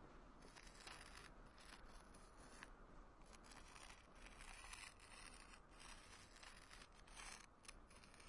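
Faint scratchy scraping of a hand drawing a dark line on a stone slab, a string of short strokes with brief pauses between them that stops near the end.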